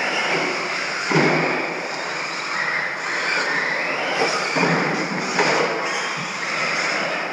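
Radio-controlled stadium truck driving on a dirt track, its motor whine rising and falling with the throttle over tyre noise. A few sharp thuds come about a second in and twice more past the middle.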